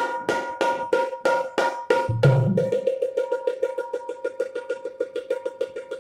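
Dholki, the two-headed Indian barrel drum, played solo by hand. It opens with ringing strokes at about three a second, then a deep bass stroke about two seconds in, then a fast, even run of strokes at about seven a second.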